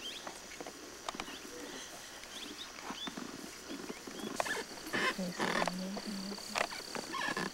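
A large animal's low, drawn-out groan lasting about a second and a half, starting about five seconds in, with rustling and crackling in grass before it.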